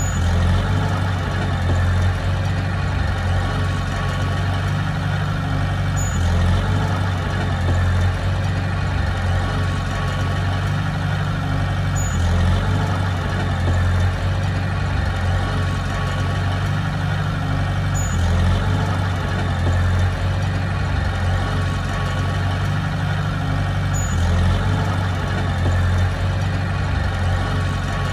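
Heavy diesel engine of earth-moving machinery running steadily at a low, even drone, with a slight swell in level every six seconds.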